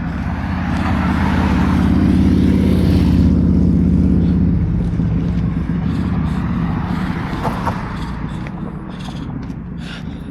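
A motor vehicle going by close with a low engine drone and tyre noise, loudest about two to three seconds in, then fading away.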